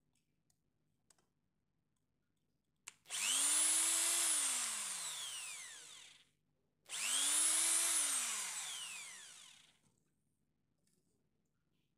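Electric drill boring into a wooden batten, run twice for about three seconds each: each run spins up quickly, then winds down in pitch as it fades out.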